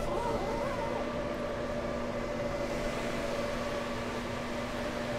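Many computer fans running steadily: the cooling fans of GPU mining rigs under mining load. The sound is an even rush of air with a few steady hum tones in it.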